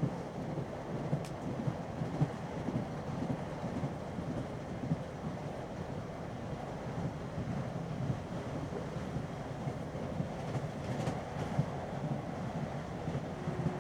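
Interior of a British Rail Class 317 electric multiple unit running along the line: a steady rumble of wheels on rails and carriage body, with small irregular knocks from the track.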